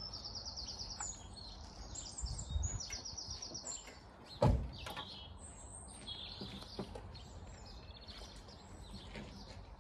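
Small birds singing in quick trilled phrases, with a few light clicks, and one single thump about four and a half seconds in that is the loudest sound.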